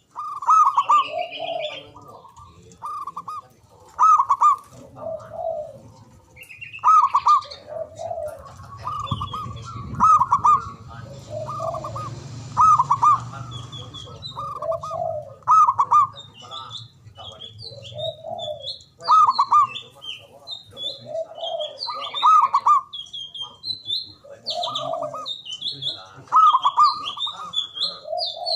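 A zebra dove (perkutut), a local Javanese bird, singing its cooing song: one phrase repeated about every one to two seconds. Higher chirping from other small birds comes in, mostly in the second half.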